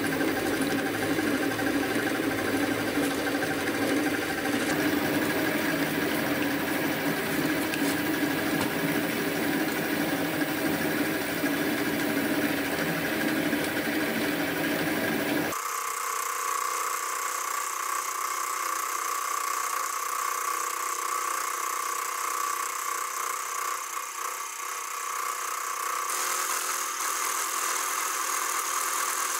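Sieg X2.7L benchtop milling machine cutting a slot in a metal block, first with an end mill and then with a T-slot cutter. The spindle motor and cutting noise run steadily throughout. About halfway through, the sound changes abruptly to a thinner, steady high-pitched whine.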